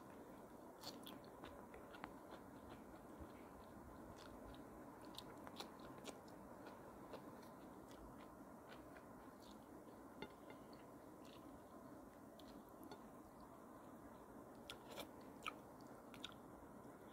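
Faint chewing with scattered small wet mouth clicks: a person eating fish and crisp lettuce, food put in by hand.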